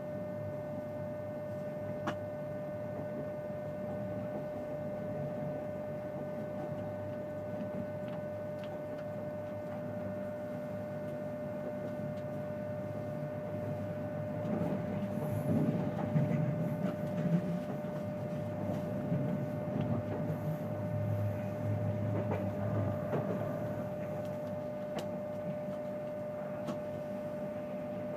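Inside a TGV high-speed train car in motion: a steady hum and rumble of the train running, with a constant high tone through it. The low rumble grows louder and more uneven about halfway through, and there is a single click early on.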